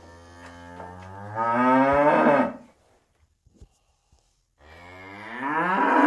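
A cow mooing twice: two long moos, each starting low and quieter, then rising in pitch and growing loud before dropping away. The second moo is still going at the end.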